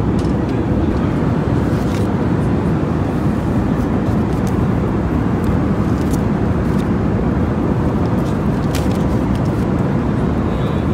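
Steady, low cabin noise inside an Airbus A320 airliner, with a few light clicks and paper rustles as the seat-back tray table and the papers in the seat pocket are handled.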